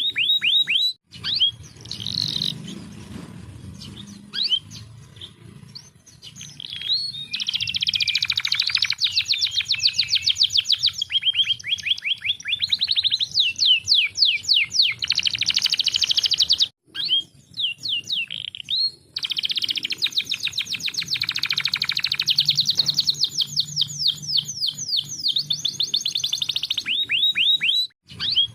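Domestic canary singing: long runs of fast trills and rolled repeated notes broken up by shorter chirping phrases, with a few sudden brief breaks in the sound.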